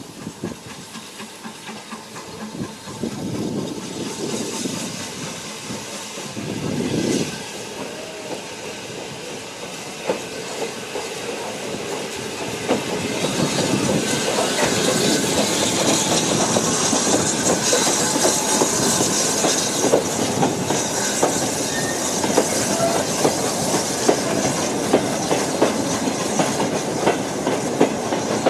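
BR Standard Class 9F steam locomotive 92214 running slowly past with a goods train. The engine hisses steam and the wagon wheels click over the rail joints. The sound grows louder about halfway through as the engine and wagons come alongside.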